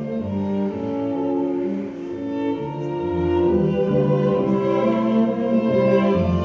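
String quartet of two violins, viola and cello playing classical music live, held bowed notes over a low cello line, growing louder about three seconds in.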